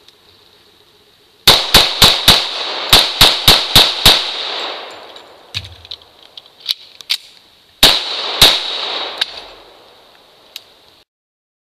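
Rapid gunfire from a KTAK gun: a quick string of four shots, then a string of five, each with an echo. After a pause of about three seconds for a reload, with a few faint clanks, come two more shots.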